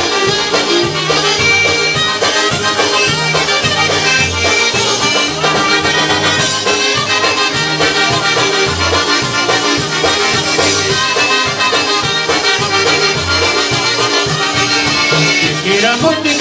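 Live polka band playing an instrumental polka: trumpets and piano accordion with a concertina, over drums and a bass line that alternates between low notes on the beat.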